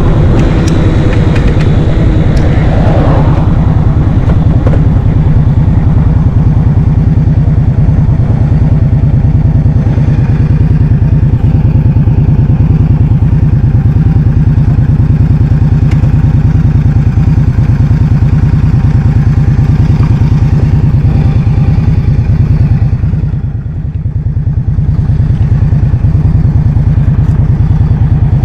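Heavy wind buffeting the microphone on a moving scooter, a dense low rumble that eases briefly about three-quarters of the way through.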